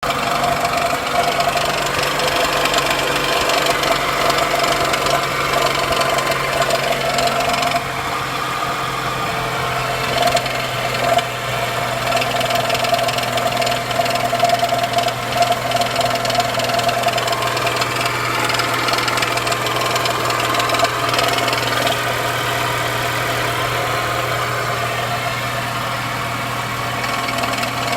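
Daewoo Nexia engine idling, with a steady hum and an irregular knocking from the air-conditioning belt's tensioner pulley, the sign of a faulty tensioner pulley.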